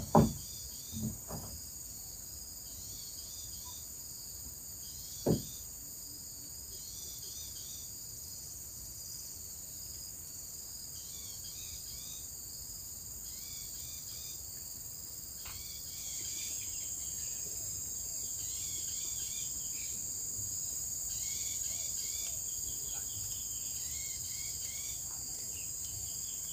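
A steady high-pitched drone of tropical forest insects, with repeated short chirping calls over it and a few dull knocks in the first five seconds. The drone grows a little louder about halfway through.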